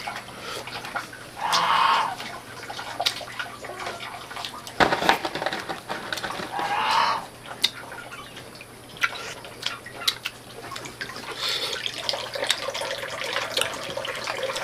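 Water pouring or splashing in short spells a few seconds apart, with scattered clicks and knocks between them.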